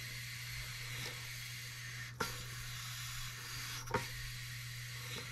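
Compressed air hissing steadily through a model Stuart beam engine that is fed air but does not run because its valve timing is out, with a few sharp clicks, the clearest about two seconds in and about four seconds in.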